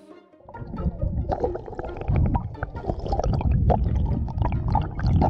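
Sea water heard through an underwater camera: a muffled low rumble with many scattered clicks and crackles, starting about half a second in.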